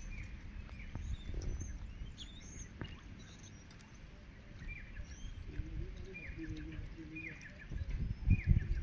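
Small birds calling with short, falling chirps repeated about once a second, over a low outdoor rumble that swells near the end.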